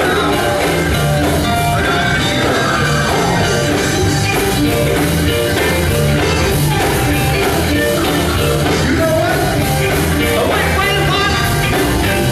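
A male gospel vocal group singing live over loud band music with a steady drum beat and bass.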